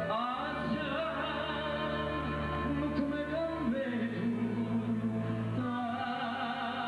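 A male voice sings live into a microphone, holding and bending an ornamented melodic line. A band backs him, with sustained keyboard chords that change about halfway through and again near the end, a plucked mandolin and a frame drum.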